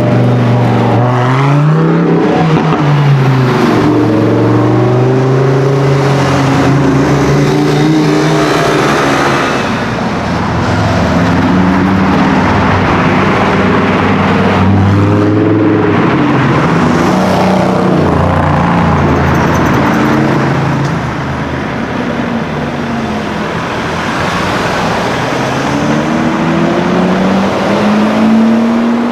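High-performance car engine revving and accelerating, its pitch rising and falling several times through the gears. Loud throughout.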